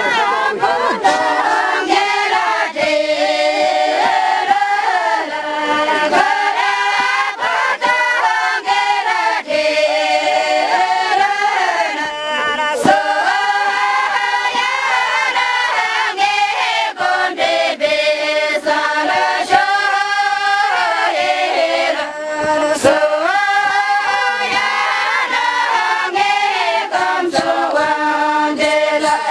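A group of women singing a Tamang Mane Chheppa song together in unison, in phrases that repeat every few seconds.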